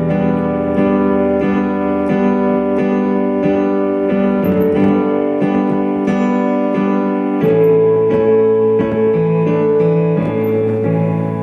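Instrumental music: electric piano chords held and changed every few seconds over a steady beat, with no singing.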